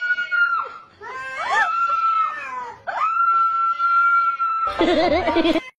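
Domestic cat yowling: three drawn-out, wavering calls, the last held steady for over a second. Near the end it cuts off and a lower, wavering whine follows briefly.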